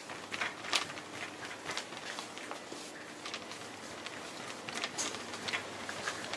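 Pushing a plastic shopping cart along a supermarket aisle: irregular light clicks and knocks over a steady background hum.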